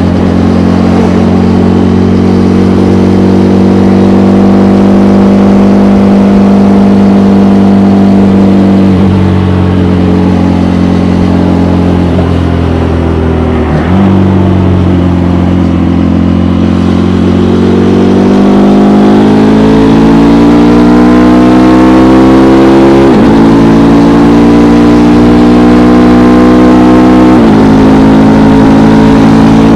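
KTM Gen 3 Duke's single-cylinder engine through its stock exhaust, under way. It runs at steady revs, dips twice in the first half, then pulls up through the revs in the second half with two quick upshifts near the end.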